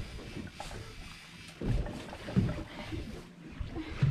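Wind rumbling on the microphone over open sea, with a couple of brief dull knocks about one and a half and two and a half seconds in.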